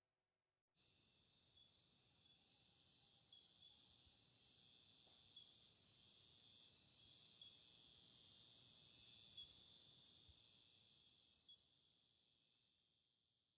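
Faint insect chorus: a steady, high-pitched chirring that starts about a second in and slowly fades out near the end.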